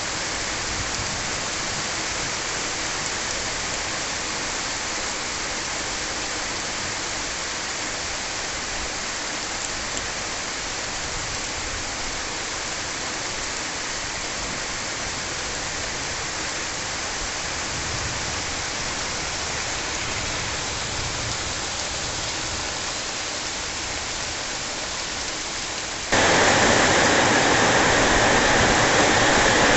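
Heavy pre-monsoon rain pouring steadily, an even hiss; about 26 s in it jumps suddenly louder and harsher.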